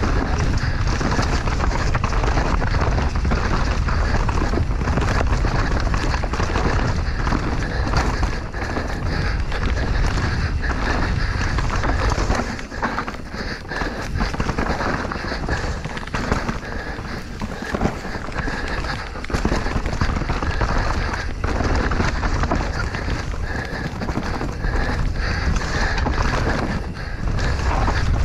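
Enduro mountain bike ridden fast down a rough trail: tyres running over rocks and dirt, with constant rattles and knocks from the bike and a heavy wind rumble on the microphone that eases briefly about halfway through.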